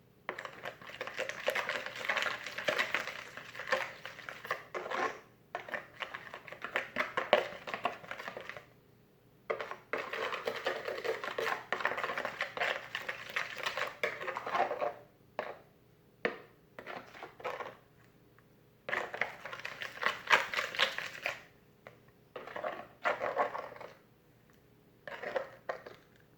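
Freshly activated homemade slime being squished and worked by hand, giving wet, crackly squelches. The first half is several seconds at a time; near the end come shorter bursts with brief pauses.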